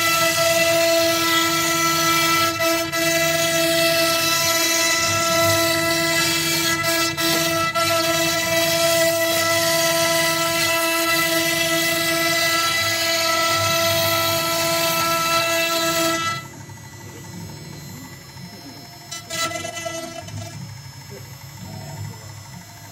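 CNC router spindle running with its bit carving lettering into a wooden board: a steady high whine with several clear tones. About sixteen seconds in it drops away abruptly to a much quieter level.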